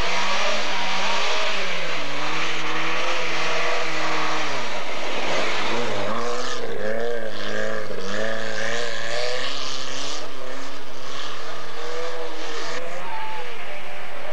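Rally car engine running hard, its pitch falling and climbing several times as it revs and changes gear, over a steady hiss.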